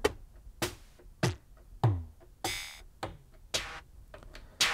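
Single drum hits from a freshly built sample kit on a Roland MC-909 groovebox, triggered one at a time from its velocity pads, about one every half second. Some are kick- or tom-like hits with a quickly falling pitch, and one near the middle is a hissing, cymbal-like hit.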